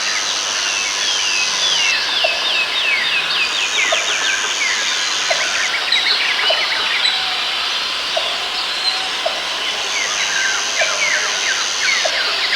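Dense rainforest ambience: many birds chirping in quick falling notes over one another, with a high steady insect drone that stops and starts every couple of seconds and short low calls about once a second.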